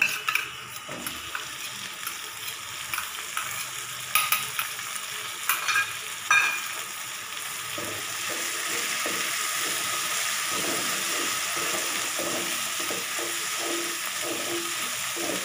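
Ground ginger-garlic paste frying in hot oil with onion and green chillies in a metal kadhai, sizzling steadily while a wooden spatula stirs and scrapes it. A few sharp knocks of the spatula on the pan come in the first half, and the sizzle grows louder about eight seconds in.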